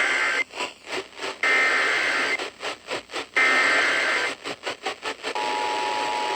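Emergency Alert System SAME header over the radio: the tail of one burst of rasping digital data warble, then two more bursts about a second long, separated by roughly a second of hiss. About five seconds in, the steady two-tone EAS attention signal begins.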